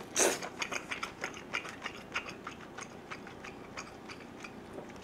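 Close-miked chewing of a spoonful of saury kimchi stew with potato sujebi: a quick, irregular run of small wet mouth clicks, several a second.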